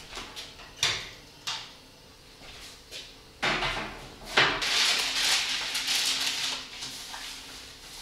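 A few sharp knocks and clatters, then baking parchment paper loudly rustling and crinkling for several seconds as it is spread and pressed down over a metal baking tray.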